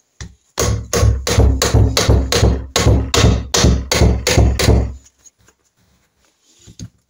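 A mallet strikes a Norton Commando's inner gearbox casing in a quick run of about fifteen sharp knocks, roughly four a second, to drive the casing off the gearbox main shaft. The knocks stop about five seconds in.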